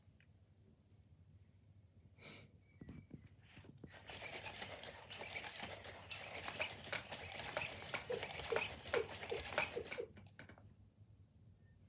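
Aibo ERS-1000 robot dog rubbing its nose against an inflated latex balloon dog: a faint rubbery rustling and scraping from about four seconds in to about ten, with a quick run of short squeaks near the end. A few soft clicks come before it.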